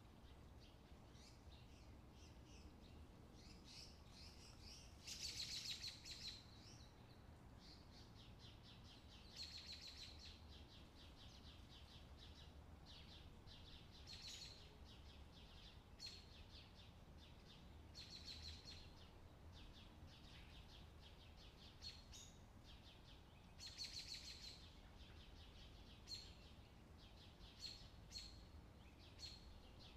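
Faint bird chirps and twittering trills in short bouts every few seconds, over a low steady hum.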